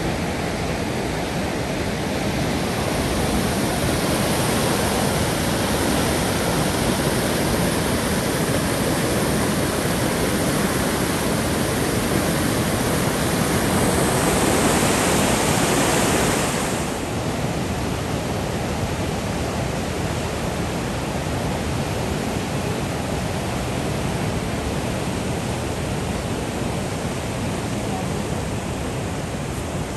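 Whitewater rapids of a river waterfall rushing steadily over rocks, the river running high and fast. The rush swells a little in the middle and then drops back a notch a little past halfway.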